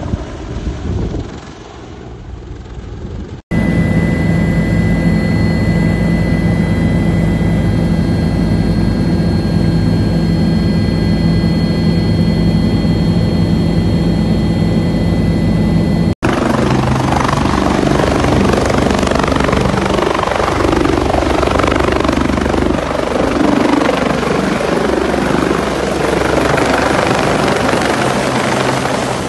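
Bell 430 helicopter's rotor and turbine noise, in three clips joined by abrupt cuts. First it fades as the helicopter climbs away, then there is a steady drone with a high, even turbine whine, and then loud rotor noise as it passes close overhead.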